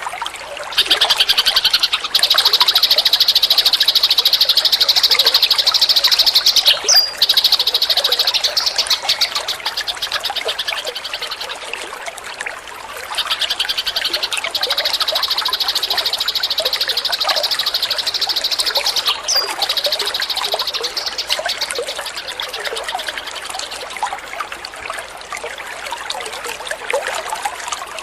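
Eurasian tree sparrow giving a rapid, buzzy chattering trill in two long runs of about eight seconds each, over a steady trickle of running water.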